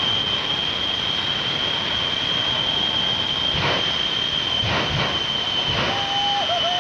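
Shockwave jet truck's three jet engines running with a steady high whine, with three afterburner blasts about a second apart in the middle.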